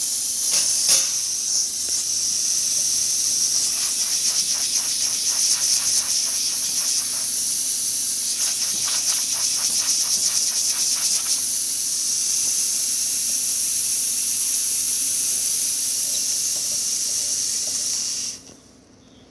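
Espresso machine steam wand opened full, blowing a loud steady hiss of steam, with two stretches of rapid sputtering partway through; the valve is shut and the hiss stops abruptly near the end.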